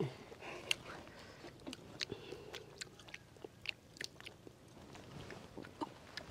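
Mouth sounds of someone chewing papaya leaves: faint, irregular small clicks and crunches.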